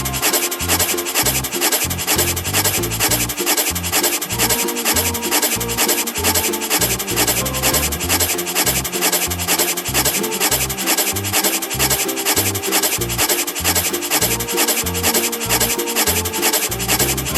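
Background music with a fast, even, scratchy shaker-like beat over a bass line and melody.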